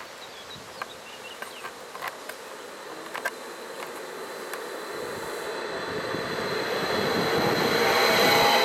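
Eurobahn Stadler FLIRT electric multiple unit approaching and running past along the platform: its running noise grows steadily louder, with a high whine, until the train is alongside near the end.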